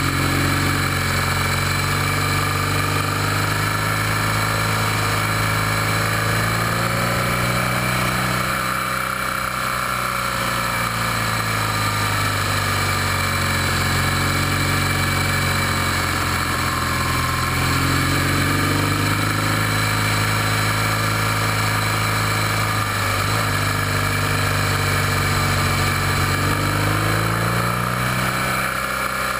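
BMW motorcycle engine running steadily up a mountain road. Its pitch sinks and climbs again a few times as the rider eases off and picks up through the bends, over a steady hiss of wind and road noise.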